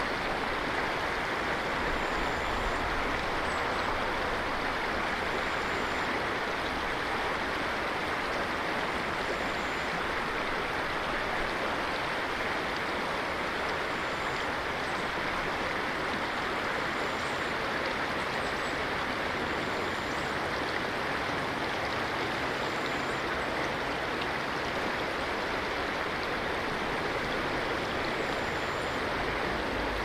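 River water flowing steadily, a constant even wash of moving water.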